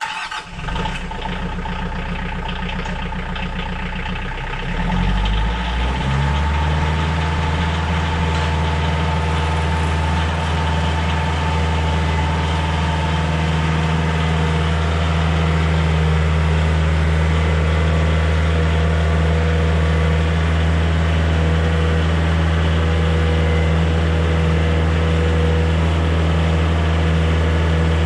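Kioti compact diesel tractor engine running, picking up speed about five seconds in and then running steadily.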